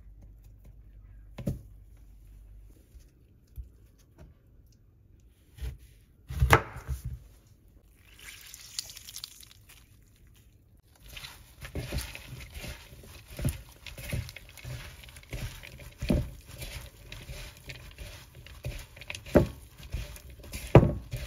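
Kitchen food-prep sounds on a wooden cutting board: irregular knocks and taps, with a short stretch of rustling about eight seconds in and a busier run of knocks through the second half.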